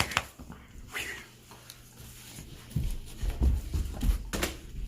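A dog play-wrestling with a person: scuffling, bumps and thuds, loudest in a cluster near the end, with a short dog sound about a second in.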